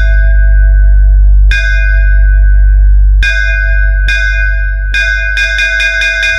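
Electronic DJ sound-check track: a loud, deep sustained bass drone with a bell-like synth tone struck once about a second and a half in, then struck repeatedly and quickly from about three seconds in.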